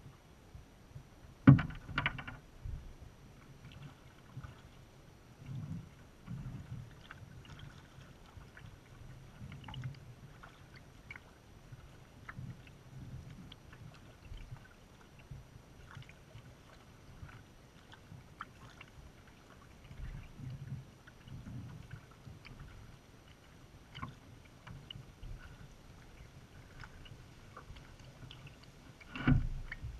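Kayak paddling: water sloshing against the hull in low pulses every second or two, with small drips and splashes from the paddle blades. Two louder thumps stand out, one about a second and a half in and one near the end.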